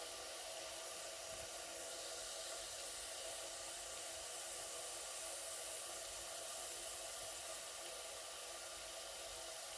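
Steady hiss of steam from a Doll toy steam engine's boiler under pressure, even throughout with no change.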